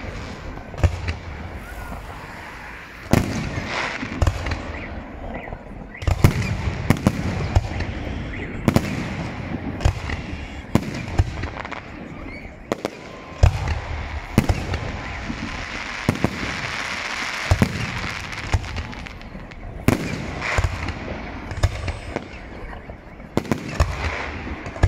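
Fireworks display: aerial shells launching and bursting in quick, irregular succession. Sharp bangs follow one another every second or so, with a crackling hiss between them.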